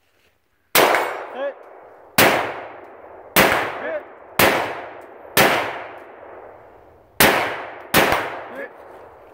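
Seven rifle shots fired at uneven intervals of roughly one second, each followed about half a second later by a fainter second report.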